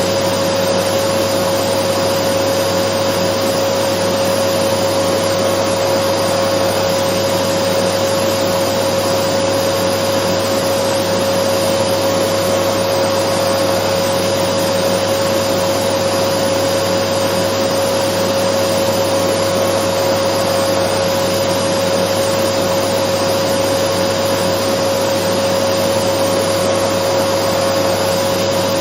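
Dyson vacuum cleaner running steadily as white noise: an even rushing hiss with a constant whine on top, no change in speed or pitch.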